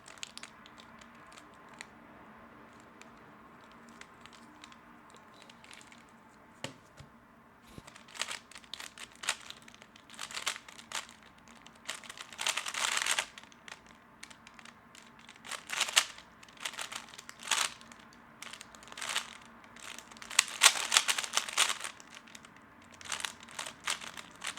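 A 3x3 Rubik's cube being turned fast in a speed solve: bursts of plastic clicking and rattling, grouped with short pauses between them, starting about eight seconds in after a near-quiet stretch.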